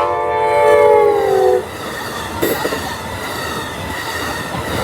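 Train horn sounding one chord blast of about a second and a half, its pitch sliding down as the train passes. It is followed by the passing train's steady rumble on the rails.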